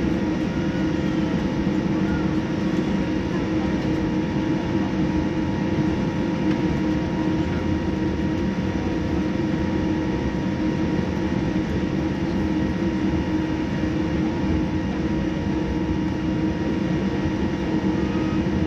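Cabin noise inside a Boeing 787-9 on the ground with its engines at idle: a steady low rumble with several steady humming tones, holding an even level.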